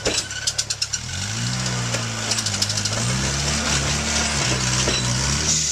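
Rock crawler buggy's engine revving up and down under load as it crawls over rock, with a rapid run of clicks soon after the start and again a little past halfway.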